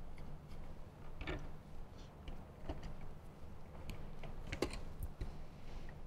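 Scattered faint clicks and ticks of a T25 Torx hand screwdriver backing small screws out of a plastic motorcycle speaker grill, with screws and grill pieces being handled.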